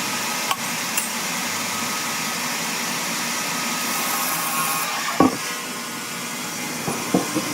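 Sawmill machinery running with a steady noisy rush, broken by a few sharp clicks and knocks of wood, the loudest about five seconds in.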